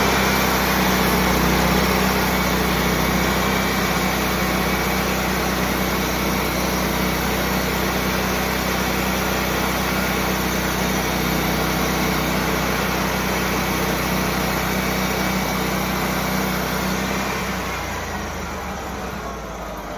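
Sawmill engine running at full throttle while the band blade saws a 1.5-inch slab off a black walnut log, a steady engine hum under the dense hiss of the cut. About 17 seconds in, the engine drops back and the sound falls away as the cut ends.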